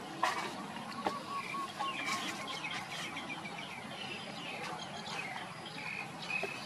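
Outdoor ambience with birds making short, high chirping calls, and two sharp clicks in the first second or so.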